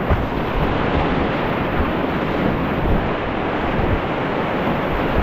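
Steady rush of whitewater rapids, with uneven low buffeting on the microphone.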